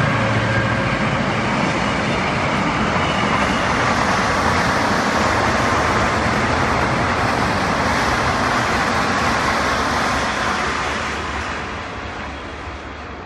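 A Korail commuter electric train rolling past at speed, a steady rush of wheel-on-rail noise that fades over the last few seconds. At the start the low engine hum of a passing diesel-hauled train dies away.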